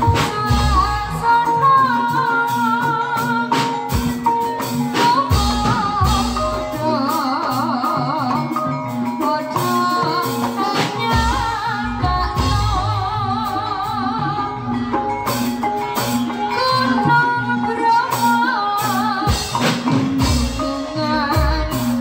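Javanese jaranan ensemble music playing continuously: a wavering melody line over drum strokes and steady, repeated lower pitched notes.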